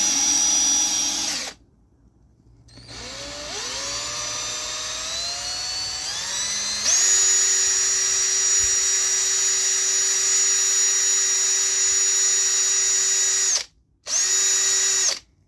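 Electric drill mixing epoxy resin and hardener. It runs steadily, stops about a second and a half in, then starts again with its whine rising in steps as it speeds up. It holds a steady high whine at full speed, stops, and gives one short final burst near the end.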